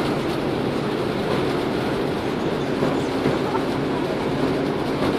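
Cruise ship underway, a steady low rumble of its engines and machinery with a faint even hum, mixed with wind and water noise.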